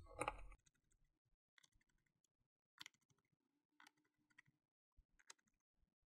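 Near silence with a few faint, sharp clicks and taps, spaced about a second apart: a small screwdriver and fingers working the rubber foot strip into the laptop's bottom cover.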